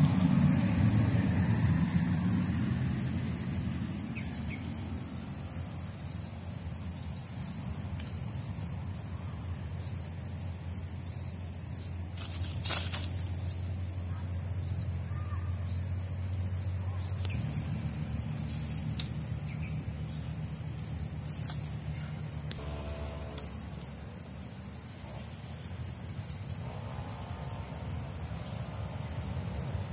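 A steady high-pitched insect drone over a low engine hum that shifts up in pitch a little past halfway, with one sharp tick near the middle.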